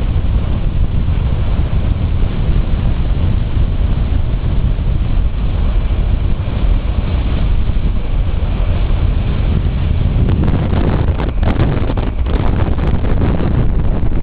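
Heavy wind buffeting on the microphone of a camera riding on a motorcycle at road speed, a loud steady low rumble. About ten seconds in, a run of crackles and knocks begins.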